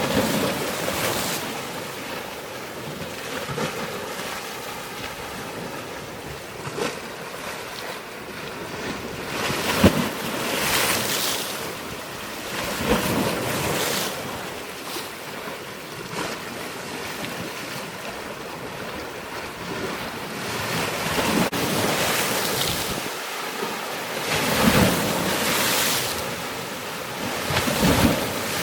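Surf: waves breaking and washing in, swelling and falling every few seconds, with wind noise on the microphone.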